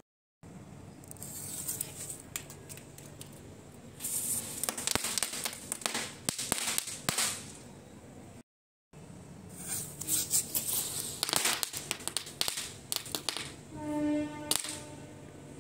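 Chatar-patar firecracker cluster going off: rapid strings of small pops and crackling in several bursts, the densest in the middle, broken by two brief dropouts. Near the end comes a short pitched cry.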